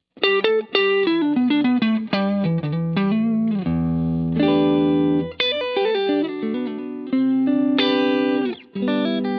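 Electric guitar played through an EHX Nano POG polyphonic octave pedal and a Line 6 HX Stomp. A quick run of single notes gives way to a held chord with a deep low octave under it, then more phrases with short gaps between them.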